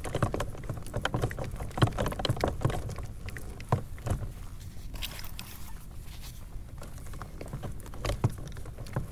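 Scattered, irregular clicks and knocks of fishing rods and reels being handled and reeled in aboard a kayak, over a steady low rumble.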